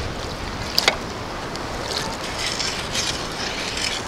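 Steady wash of shallow surf and wind on the microphone, with one short sharp tick about a second in and light splashing of water around the feet later on.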